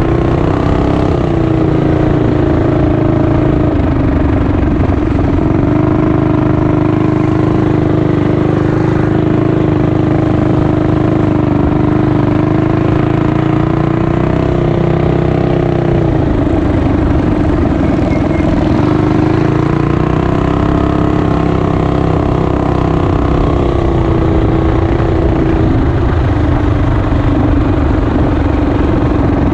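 Mini bike's small engine running while being ridden, its pitch rising and falling with the throttle, with a dip about halfway through and a rise again near the end.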